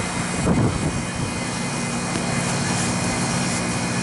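Rooftop refrigeration condensing unit running, its compressor giving a steady low hum under an even rushing noise.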